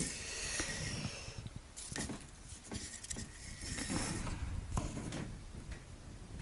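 Close handling noise: rustling with soft knocks and low rumbles as a handheld camera and a wooden model ship are moved about near the microphone.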